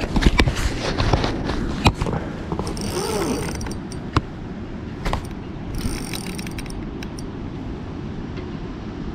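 Clicks and knocks of fishing gear being handled against a kayak's hull, with a run of sharp ratchety clicks in the first two seconds and another short cluster about six seconds in.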